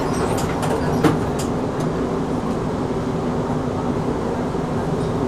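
Melbourne tram running, heard from on board: a steady rumble and hum with a few sharp clicks and knocks in the first second and a half, the loudest about a second in.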